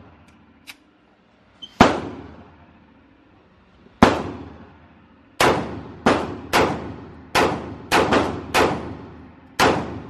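Pistol shots echoing in an indoor range, about ten in all. Two come a couple of seconds apart, then eight follow in quicker succession from about five seconds in, each ringing out in the hall.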